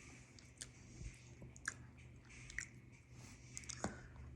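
Person chewing food with the mouth close to the microphone, with scattered wet mouth clicks and smacks every second or so, the loudest near the end.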